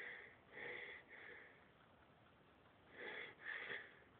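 Faint short breaths and sniffs from a person in a sneezing fit: three quick puffs in the first second and a half, then two more about three seconds in.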